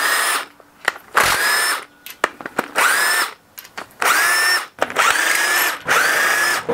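Cordless power tool spinning bolts out of an engine's side cover in about six short runs. Each run is a motor whine that rises in pitch and then holds level, with short pauses between the runs.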